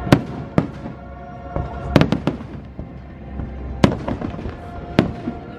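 Aerial firework shells bursting overhead: about half a dozen sharp bangs at uneven intervals, two of them close together about two seconds in. The show's music soundtrack plays underneath.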